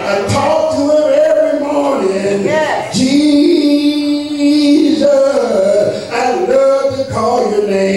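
A Baptist preacher whooping: a man's voice chanting the sermon in sung, drawn-out notes, holding one long tone near the middle.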